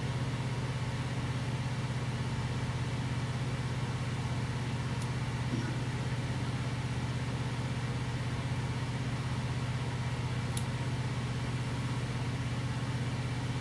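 Steady low machine hum, even and unchanging, with two faint clicks about five and ten seconds in.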